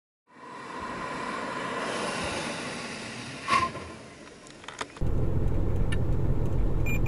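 Toyota Corolla Sport, heard from the trackside, drives up to a stationary target car and brakes to a stop under automatic emergency braking, with one sharp noise about three and a half seconds in. It then cuts to the cabin: steady low road rumble at about 50 km/h, and near the end the collision warning starts beeping rapidly.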